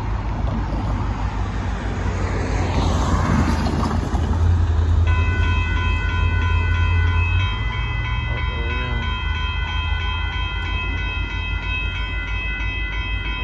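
Railroad crossing warning bell starting up about five seconds in and ringing on in a fast, even repeating pattern, while the crossing lights flash. Under it runs the loud low rumble of the stopped Union Pacific train's diesel locomotive, swelling and then easing off about halfway through, and in the first few seconds a car passes on the wet road.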